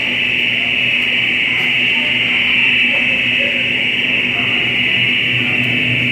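Electronic alarm sounding a loud, continuous high-pitched tone without a break.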